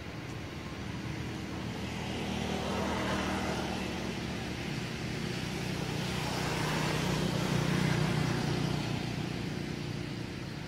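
Motor vehicles passing on a nearby road: an engine hum that swells and fades twice, about three seconds in and again, louder, about seven to eight seconds in.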